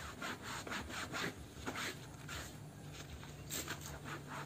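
Nylon mesh dish scrubber, worked by rubber-gloved hands, scrubbing a wet, soapy football jersey in quick back-and-forth strokes. It makes a run of scratchy swishes, about two or three a second, with a short pause in the middle. The hot soapy water is lifting the cracked sponsor print off the shirt.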